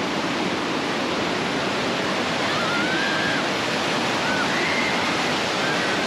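A waterfall's rushing water, a steady, loud, unbroken rush close by.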